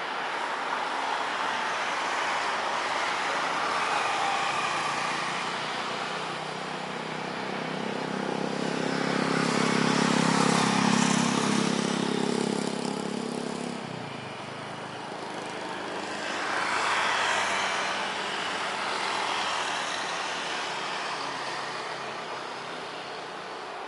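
Jet engines of an Airbus A330 airliner taxiing at low power: a steady rushing hiss that swells and fades, with a low hum loudest around the middle that drops away suddenly.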